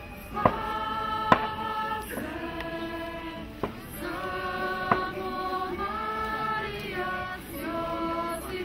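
A choir singing in long held notes, with a few sharp clicks over the singing.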